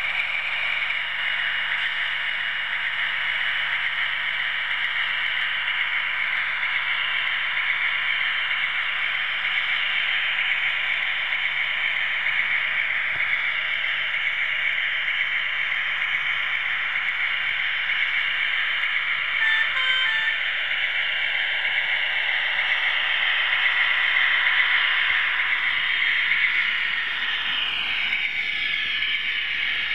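00 gauge model train running along the track, heard from on board: a steady mechanical whirr of the drive and wheels on the rails. A brief double tone sounds about two-thirds of the way in.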